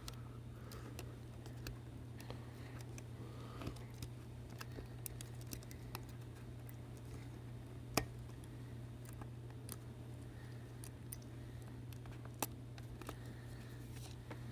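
Faint, scattered clicks and ticks of small repair tools and parts against an opened iPhone 7 as the charge port assembly is worked into place, with one sharper click about eight seconds in and another near the end. A steady low hum runs underneath.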